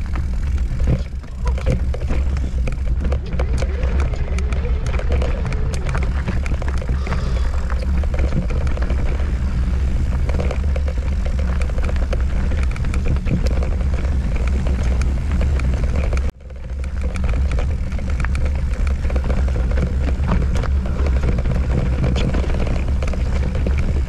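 Wind rumbling on the camera microphone, with a continual clatter and rattle from a mountain bike riding down a rough, rocky trail. The sound breaks off abruptly for a moment about two-thirds of the way through, then resumes.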